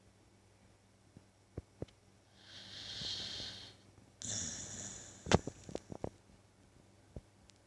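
Snoring: a long breathy breath, then a harsher snoring breath with a low rattle about a second later. Right after it comes a loud sharp click and a few smaller clicks.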